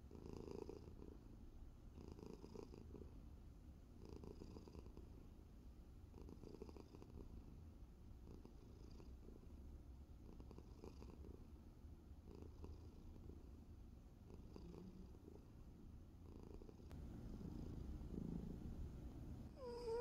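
Sleeping tabby cat purring softly, with a stronger breath about every two seconds, and a brief squeaky meow-like call right at the end.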